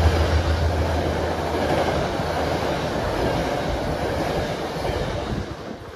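Metro-North express train's passenger coaches rolling past on the station track: a steady rush of wheel and rail noise with some clickety-clack. The locomotive's low drone fades in the first second, and the rush dies away near the end as the last cars go by.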